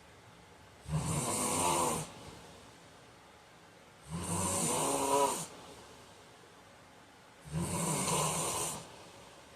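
A sleeping man snoring loudly: three snores, each a little over a second long, about three seconds apart, with quiet breathing gaps between them.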